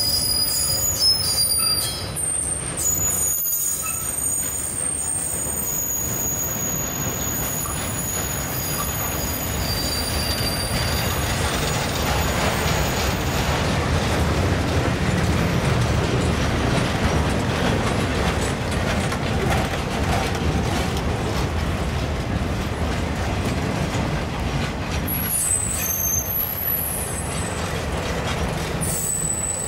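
Freight cars rolling past with a steady rumble from their wheels on the rails. High-pitched wheel squeal of several tones comes and goes during the first third and returns near the end.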